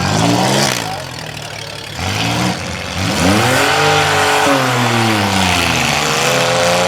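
Compact demolition-derby car engines revving, rising and falling in pitch several times, then held at a fairly steady high rev for a few seconds.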